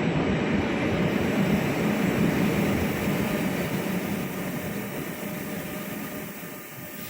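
A train running through the station, its rumble steadily fading as it moves away.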